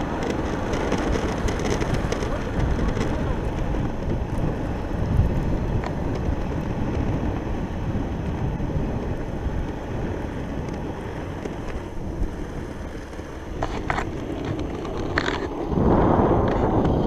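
Waveboard caster wheels rolling fast over rough asphalt, a steady rough rumble, with wind buffeting the microphone; the rush grows louder near the end.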